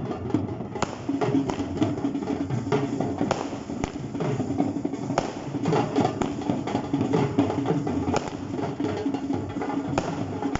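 Fireworks cracking and popping at irregular intervals over music with drums.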